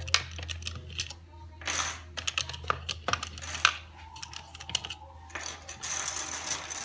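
Needles being pulled out of the slots of an Addi Express knitting machine and set down together: irregular small clicks and light clattering.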